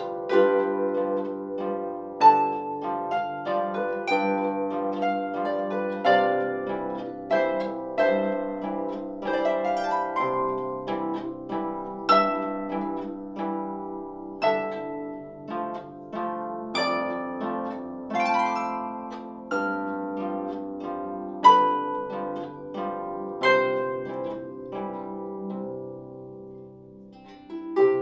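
Solo lever harp played by hand: plucked melody notes ringing out over held bass notes, with the playing thinning and fading softer near the end.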